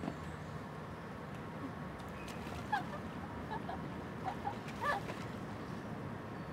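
Bird calls: a few short, high chirps in clusters about three seconds in and again near five seconds, over a steady low ambient rumble.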